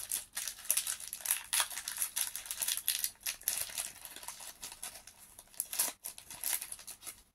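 Foil wrapper of a Pokémon booster pack crinkling as it is torn open by hand, a quick irregular run of crackles.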